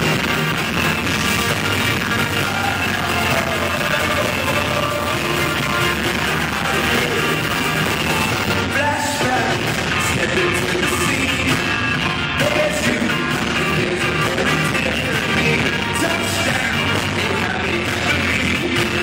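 Live rock concert music heard loud through a phone microphone: band with guitars and drums and a singer over it, the mix crowded and distorted.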